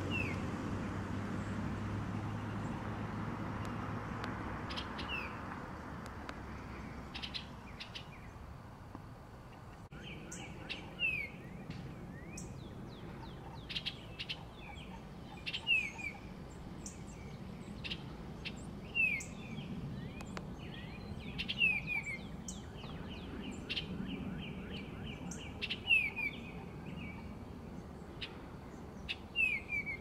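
Female eastern bluebird calling with short, falling chirps, sparse at first and then repeated every two or three seconds from about a third of the way in.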